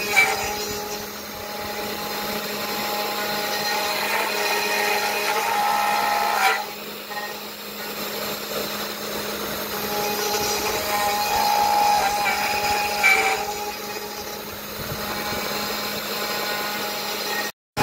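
CNC router spindle whining as a small carving bit mills a relief into a wooden block, its tones shifting in pitch and loudness as the cutting load changes. It drops out briefly near the end.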